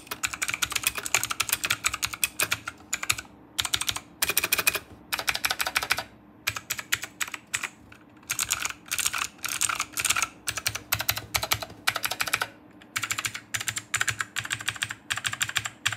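Typing on a Rexus Ayaka mechanical keyboard with clicky Otemu Blue switches: fast runs of crisp keystroke clicks, broken every few seconds by brief pauses.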